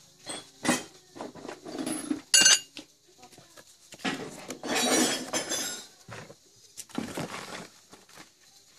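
Steel rotavator tiller blades clinking and scraping against each other as they are handled in their cardboard packing box, with the cardboard rustling. A sharp ringing metal clink about two and a half seconds in is the loudest, and a longer stretch of rustling and scraping follows about four seconds in.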